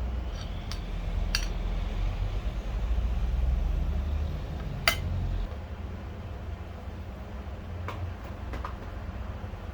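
Metal parts clinking and tapping a few times, the sharpest about halfway through, over a low steady hum that drops in level just after.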